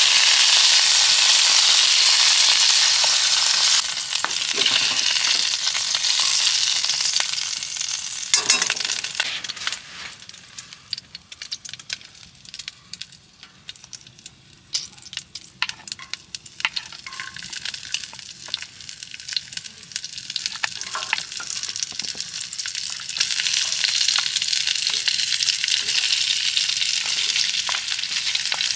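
Food sizzling and spitting in a hot pan, with a dense hiss that drops away for about ten seconds in the middle, leaving scattered crackles and clicks, then comes back near the end.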